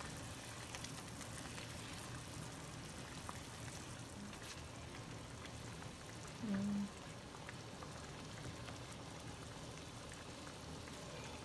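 Thick gravy with paneer simmering in a pan, a faint steady bubbling with small scattered pops. A short low hum about six and a half seconds in.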